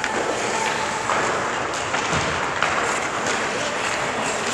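Ice skate blades scraping and carving across the rink ice, with a few light knocks of stick and puck.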